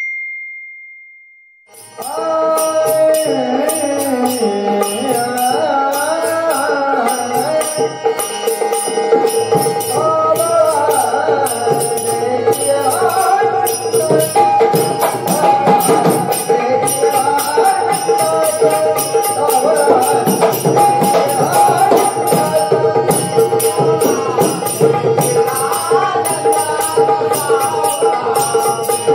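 A single ringing stroke fades out, then devotional folk music for a Marathi gavlan begins about two seconds in. It has a steady held drone, a melody gliding up and down over it, and an even beat of jingling percussion.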